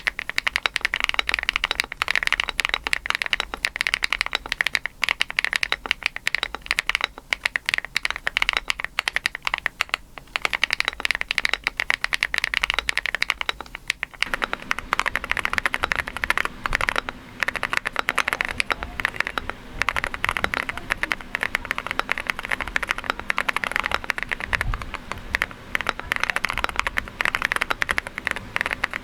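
Fast, continuous typing on a Rainy 75 mechanical keyboard with a PP plate, fitted with HMX Cheese switches. About halfway through it changes to Haimu Midnight switches, and the key strikes take on a deeper, fuller sound.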